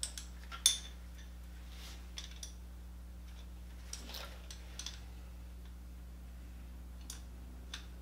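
Wrenches clinking on the steel jam nut and spindle of a motorcycle's rear brake master cylinder pushrod as a stuck nut is worked loose: one sharp metal clink under a second in, then a few faint ticks spread out.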